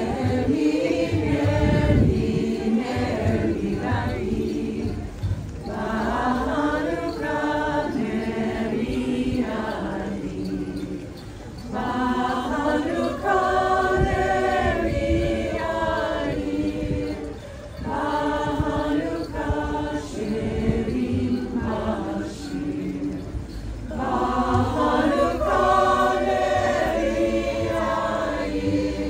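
Mixed-voice choir of men and women singing unaccompanied, in sung phrases with brief breaks for breath between them.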